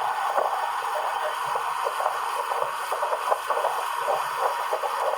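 Jon boat under way: steady noise of its outboard motor, water and wind, with many small knocks against the hull.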